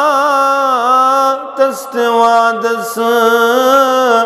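A single male voice chanting a devotional verse unaccompanied, holding long drawn-out notes with wavering ornamental turns and breaking off briefly for breath about halfway through.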